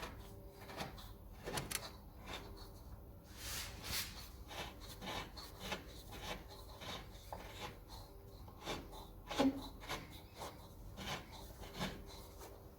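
A steel bolt being worked out of a car's front control arm rear rubber bushing (silent block) by hand: irregular scraping and rubbing of metal with light knocks.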